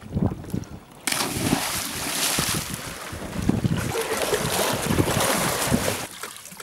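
Wind buffeting the microphone on a sailing boat under way, with a steady rush of wind and water that comes up suddenly about a second in.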